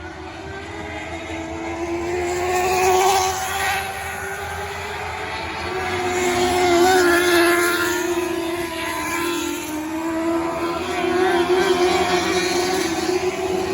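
Micro sprint race cars running laps, the high engine note swelling and fading three times as cars pass.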